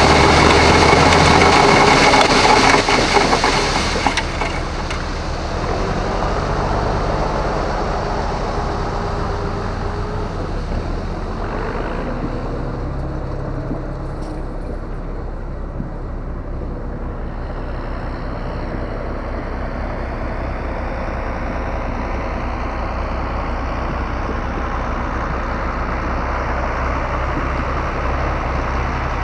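Grain truck's engine running steadily on the road. It is louder for the first few seconds, then settles into an even drone.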